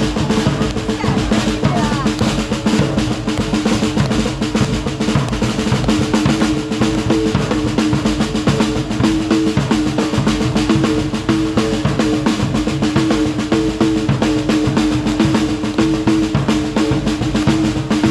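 Football supporters' drums beating a fast, steady rhythm in the stands, with a held tone underneath.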